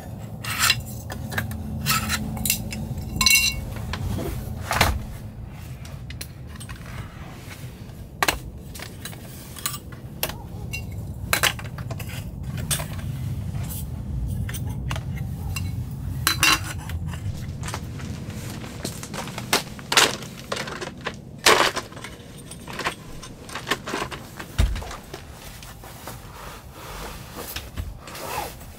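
Montero bamboo four-fold camp table being unfolded and set up: wooden slats knocking together and its metal legs and hinge latches clicking into place, many sharp clacks scattered throughout, over a steady low rumble.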